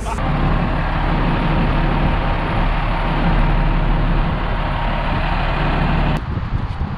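A heavy engine idling steadily, a loud even rumble with a low hum under it, that cuts off suddenly about six seconds in.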